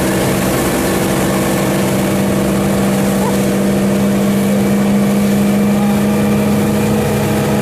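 Motorboat engine running at a steady speed, a constant even drone with no change in pitch.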